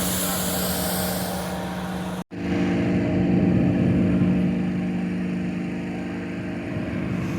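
Steady engine drone of hot air balloon inflator fans running during cold inflation. The sound cuts out for an instant a little over two seconds in, then carries on.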